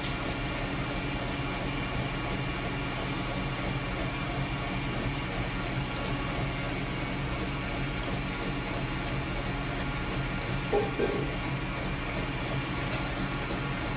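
Electric mixer running steadily at high speed, whipping chilled liquid cream into chantilly.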